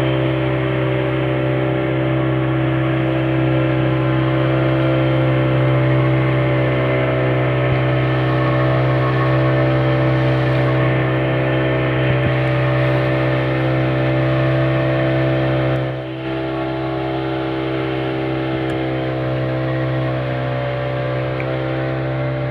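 Boat engine running at a steady speed, a constant hum, dropping slightly in level about two-thirds of the way through.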